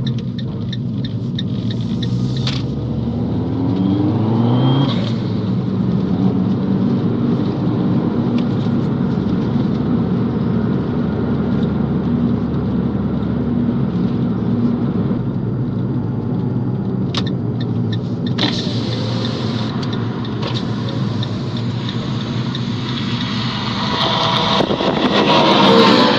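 Fiat 500 Abarth's turbocharged 1.4-litre four-cylinder engine running under way, with a brief high turbo whistle. The engine pitch rises as it accelerates about two to five seconds in and again, louder, near the end.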